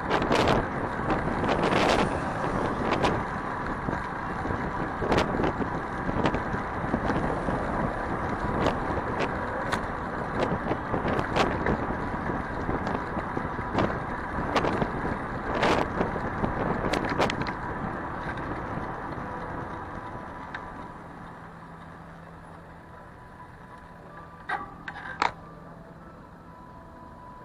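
Street traffic and wind noise heard while riding a bicycle through city streets, with frequent sharp knocks and rattles. It grows quieter about twenty seconds in.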